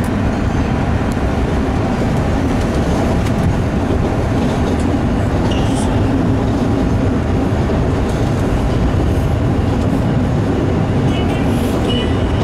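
MBTA Red Line subway car running at speed, a loud, steady rumble of steel wheels on the rails heard from inside the car. A brief faint high whine comes in near the end.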